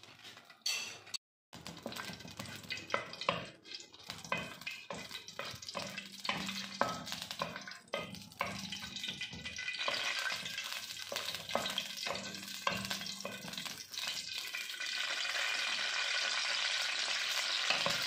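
Whole spices frying in hot oil in an aluminium pot, stirred with a wooden spatula, making irregular scrapes and taps against the pan. The sizzle builds and becomes steady in the last few seconds.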